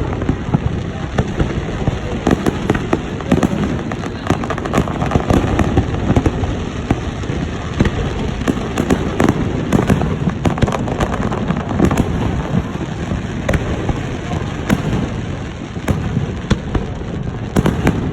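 Aerial fireworks display going off in rapid succession: a continuous barrage of sharp bangs and crackles, several every second.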